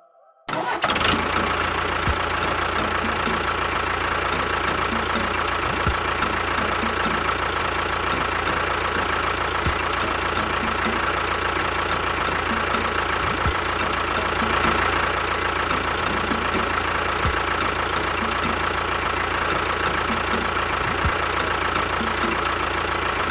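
A small motor running steadily with a constant whine, starting about half a second in.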